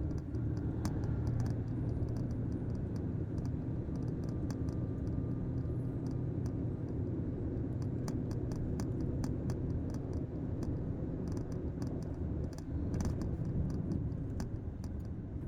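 Truck engine running steadily under way, heard from inside the cab as a low drone, with scattered light clicks and rattles.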